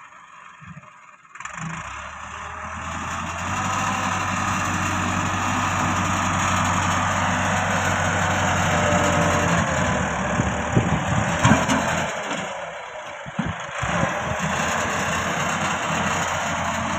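Massey Ferguson tractor's diesel engine running steadily under load as its front blade pushes soil, coming in after about a second. A few sharp clanks and knocks come around the middle.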